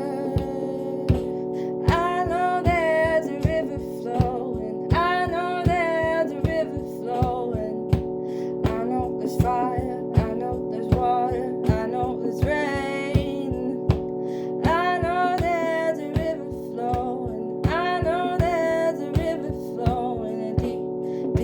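A voice singing a slow song over a strummed acoustic guitar, the sung lines coming in phrases with pauses between them over a steady strumming rhythm.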